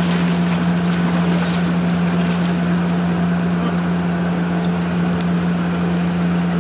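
A steady low motor hum with water sloshing and splashing as a crowd of nurse sharks jostle in the shallows.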